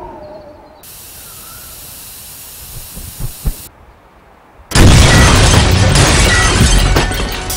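A steady hiss with two sharp knocks, then about five seconds in a sudden, very loud blast of noise that slowly dies away.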